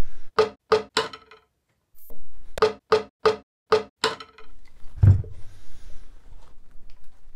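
Wooden mallet striking the end of a wooden Windsor chair spindle to knock its tenon down through the seat and free the chair back: three sharp knocks, a brief break, then six more, each with a short wooden ring. A heavier low thump follows about five seconds in.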